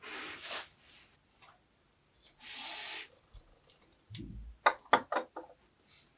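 Hands handling toys and kinetic sand on a tabletop: two short rubbing, rustling noises, then a soft thump and a quick run of sharp taps about five seconds in as a toy is set down.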